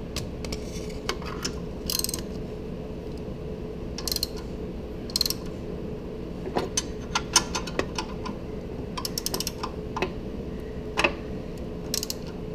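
Hand ratchet on a long extension clicking in short runs as it turns down a 15 mm exhaust manifold-to-pipe flange bolt.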